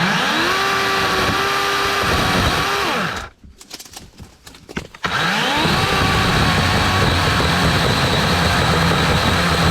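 DeWalt 12-inch battery chainsaw (DCCS620) with its electric motor whining up to speed, running about three seconds and spinning down, then triggered again about five seconds in and running on steadily as it cuts through overgrown branches.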